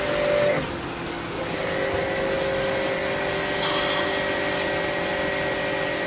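Idling car with its air conditioning being serviced: a steady mechanical hum with a few fixed tones. A short hiss of compressed air from an air blow gun comes about three and a half seconds in.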